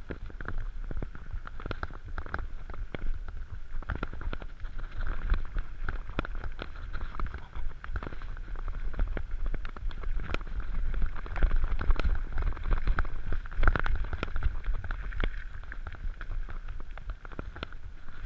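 Mountain bike riding fast down a rough gravel trail: tyres crunching and the bike rattling with irregular knocks and clicks over bumps, over a steady low rumble of wind on the microphone.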